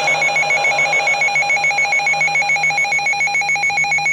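Emergency Alert System tones broadcast over AM/FM radio, ahead of a severe thunderstorm warning: a loud, continuous electronic warble that ripples about eight times a second.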